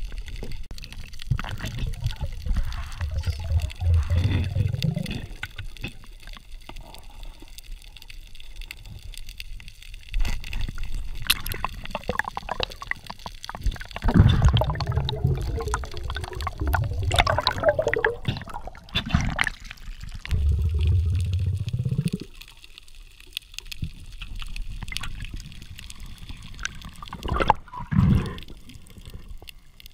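Muffled underwater gurgling and sloshing picked up through an underwater camera housing, rising in uneven low rumbling bursts with scattered clicks between them.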